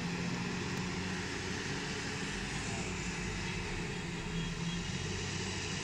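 Diesel engine of a wheel loader running steadily as it works, a low steady drone under a broad hiss.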